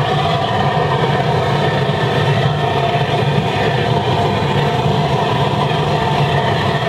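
Waste oil burner running at full air into a 205-litre steel drum furnace: a loud, steady noise of flame and blown air, with a constant low hum, that holds even throughout.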